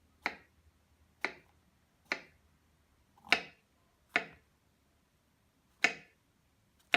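A kitchen knife chopping down through food onto a cutting board, seven sharp, unevenly spaced strokes at roughly one a second, slicing mushrooms thin.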